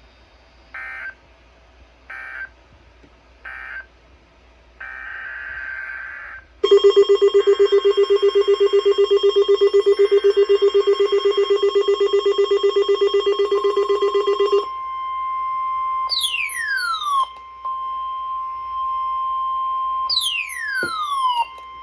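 NOAA Weather Radio alert header: three short buzzy data bursts a second or so apart, followed by a weather radio receiver's loud, rapidly pulsing alarm for about eight seconds. Then a steady high alert tone holds to the end, crossed twice by steep falling whistles.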